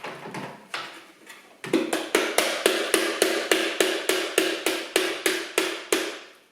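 A plastic vacuum dust cartridge being knocked repeatedly to shake out packed carpet fluff that is stuck inside. A few separate knocks come first, then a fast, steady run of sharp knocks at about four a second.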